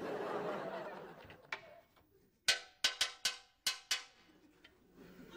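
Studio audience laughing, fading out within the first couple of seconds. Then six sharp metallic clanks in quick succession, each ringing briefly, as things are handled in a kitchen cabinet.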